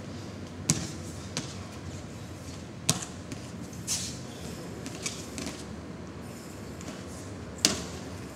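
Swishes and thuds from a long wooden staff being swung through a Southern-style staff (nangun) routine, along with the performer's footwork on gym mats. There are about six short, sharp sounds spread across the stretch, the loudest just before the end.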